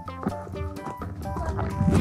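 Background music: a melody of held notes over a steady bass.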